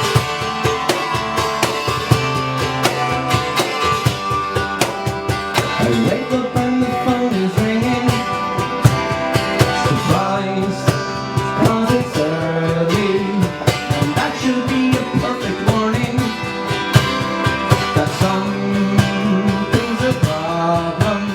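Live band playing a song: strummed guitar over a steady beat, with a voice singing a melody from about six seconds in.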